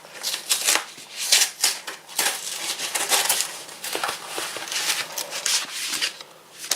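Plastic packaging and paper rustling and crinkling in quick irregular bursts as the LEGO instruction booklets and sticker sheets are unpacked and handled.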